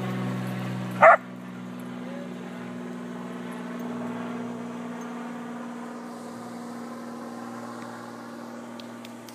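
One short, sharp dog bark about a second in, over a steady low hum.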